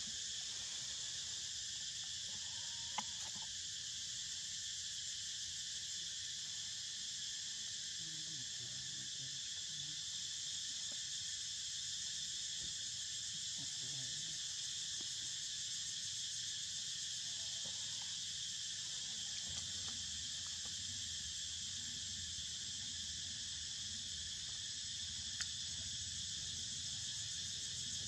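Steady outdoor chorus of insects trilling, several high-pitched bands holding unchanged throughout, with a couple of faint clicks.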